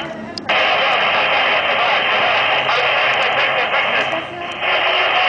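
Steady hiss of static from a two-way radio receiver, cutting out abruptly for a moment at the start and again about four seconds in.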